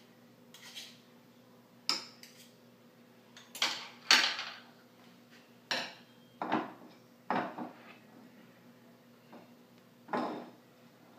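Kitchen utensils knocking and scraping against a bowl and a wooden cutting board as chopped vegetables are moved into mashed avocado: about ten separate clatters, the loudest a longer scrape about four seconds in.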